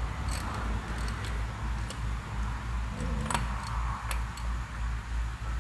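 A ratchet working an oil pressure sensor socket, giving scattered sharp clicks as a new oil pressure sensor is tightened down onto its sealing washer in an LS V8 engine block, over a steady low hum.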